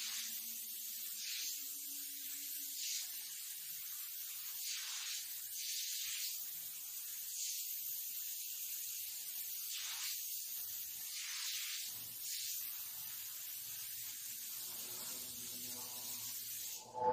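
Small gravity-feed paint spray gun on a compressed-air hose, hissing as it sprays paint onto a wall. The hiss swells and fades in short strokes every second or two as the trigger is worked.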